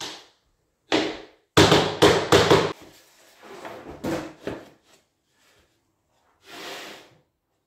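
Laminate floor planks being handled and fitted by hand: a quick run of loud wooden knocks about a second and a half in, then the rub of a plank being slid across the underlay near the end.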